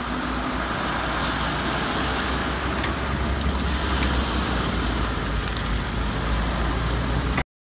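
Fire truck engine running steadily, a continuous low rumble under a wash of street noise, cutting off abruptly near the end.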